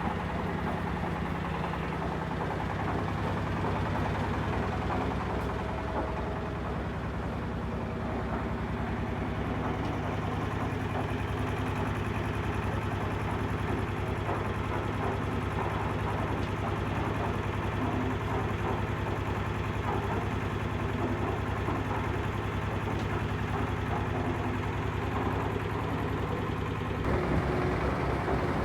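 Heavy engine idling steadily with a low hum. Near the end it grows a little louder and a steady higher tone joins in.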